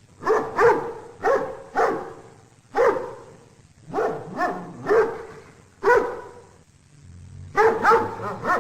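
A dog barking over and over, about a dozen barks, some single and some in quick pairs, with a fast run of barks near the end.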